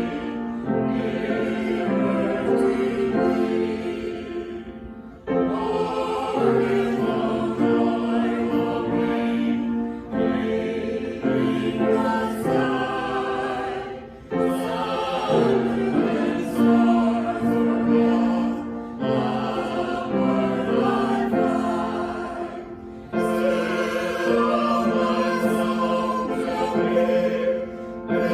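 Choir singing slow, sustained phrases, each breaking off after about four to five seconds.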